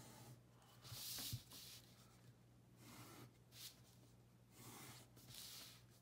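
Pen drawing straight lines on paper: several faint scratchy strokes, the loudest about a second in and a longer one around five seconds in, over a low steady hum.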